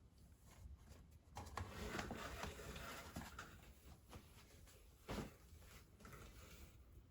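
Faint scratching and rustling on cardboard, with one short louder scrape about five seconds in.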